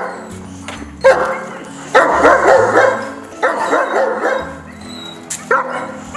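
A dog barking in repeated bursts, roughly a second apart, over background music with a steady bass line.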